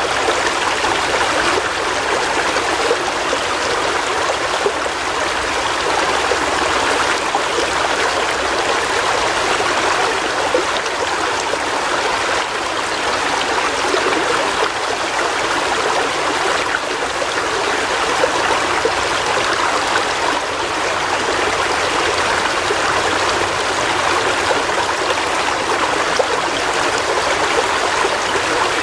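River water flowing and babbling in a steady rush, its sound sitting in the middle and upper range with little deep rumble.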